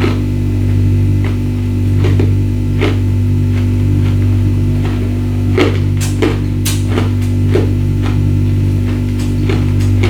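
Ice being bitten and crunched between the teeth, about a dozen sharp, irregular crunches, most packed together in the middle of the stretch. A steady low hum runs underneath.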